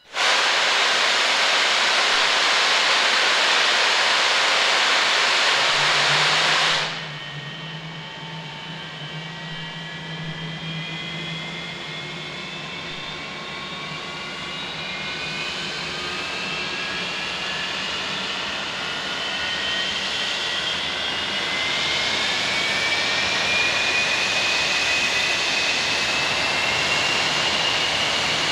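English Electric Lightning's Rolls-Royce Avon engine start: the Avpin starter fires with a sudden, loud rushing hiss that cuts off about seven seconds in, then the turbojet's whine rises steadily in pitch as the engine spools up toward idle.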